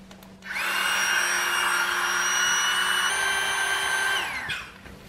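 Exped Widget Pump, a small battery-powered electric air pump, running on the valve of an Exped Dura 8R sleeping pad to inflate it. Its whine spins up about half a second in, steps slightly higher about three seconds in, then winds down and stops near the end.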